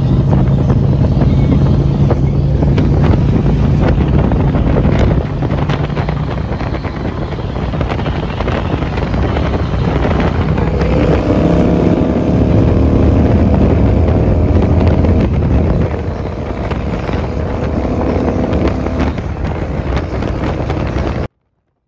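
Harley-Davidson motorcycle engine running at highway speed, heard from on the bike with heavy wind noise on the microphone. The level drops slightly about five seconds in. From about halfway a higher, slowly rising engine note runs for several seconds. The sound stops abruptly near the end.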